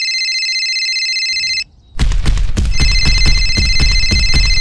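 A mobile phone ringing: an electronic trilling ring of several steady high tones. It breaks off about a second and a half in, and half a second later music with a heavy fast beat starts, with the ring sounding again over it.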